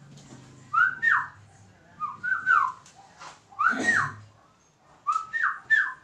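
Whistling: a two-note phrase, a short rising note swept straight into a longer falling note, repeated four times about every one and a half seconds.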